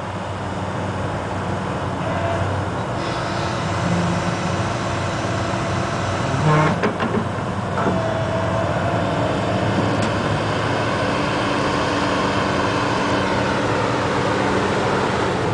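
Excavator's diesel engine running steadily, with a brief louder clatter about six and a half seconds in.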